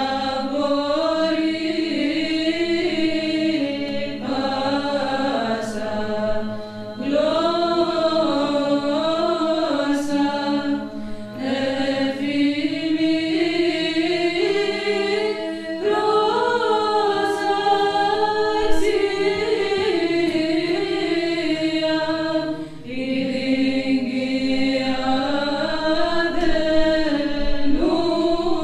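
A choir of Orthodox nuns' women's voices singing a Theophany hymn a cappella, the melody moving over a steady held low drone note. It comes in phrases with brief pauses for breath between them.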